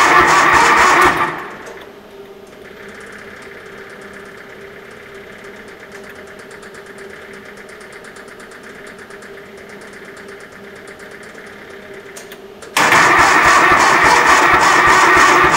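Starter cranking the cold Kubota D640 diesel of a Cub Cadet 1772 garden tractor with a steady, even beat of compression strokes, without catching, in a cold-start attempt at about 24°F. The cranking stops about a second in, leaving a faint steady hum, and starts again abruptly near the end.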